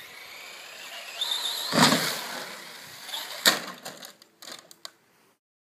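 Traxxas Slash 4x4 VXL RC truck's brushless electric motor whining as it speeds up, then a loud thud about two seconds in and a second sharp crash about a second and a half later as the truck lands off the jump and flips over, followed by a few lighter knocks. The sound stops shortly before the end.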